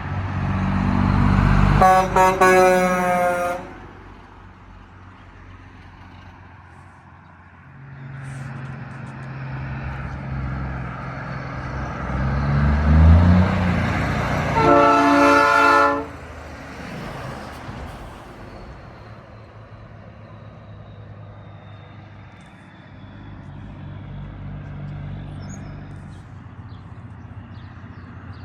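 Two blasts of a truck-mounted train horn, each lasting about a second and a half, the first about two seconds in and the second about halfway through. Under the blasts, semi-truck diesel engines run past; one rises in pitch as it accelerates just before the second blast.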